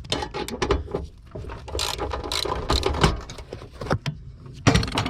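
Hand ratchet wrench turning a bolt, its pawl clicking rapidly and unevenly in quick runs.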